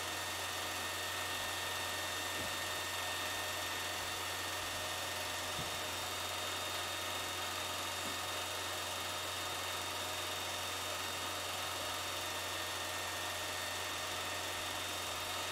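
A film projector running with a steady whir, over a constant low hum and hiss.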